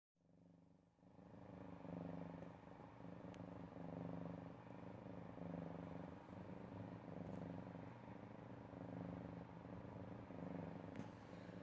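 Domestic cat snoring: a faint, rhythmic rasp that swells and eases with each breath, about every one and a half to two seconds. Two faint clicks are heard, about three seconds in and near the end.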